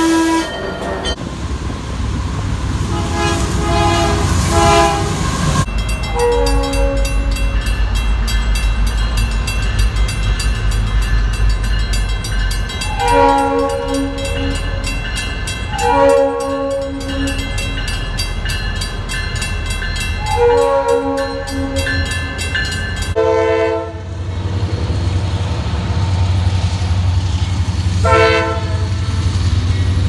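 Locomotive air horns sounding in a series of separate clips, each blast a steady multi-note chord. In the middle stretch a freight locomotive sounds about four blasts spread over some fifteen seconds, over the low rumble of the train and the fast ringing of a grade-crossing bell.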